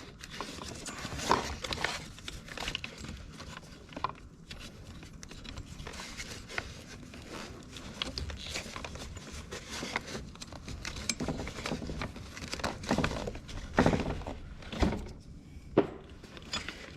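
Scattered knocks, clunks and scraping of hand work on an ATV's steering shaft assembly as parts are worked loose, with a few sharper knocks about a second in and again near the end.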